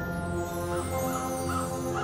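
Crow caws, a short call repeated about twice a second from about a second in, over held chords from a marching band's front ensemble.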